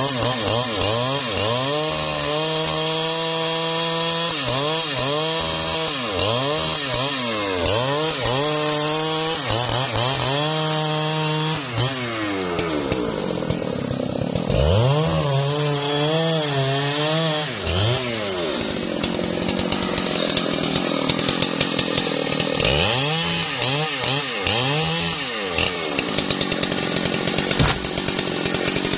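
Large two-stroke chainsaw cutting into a thick trembesi (rain tree) trunk. The engine revs up and down over and over, with stretches held at full throttle while the chain bites into the wood.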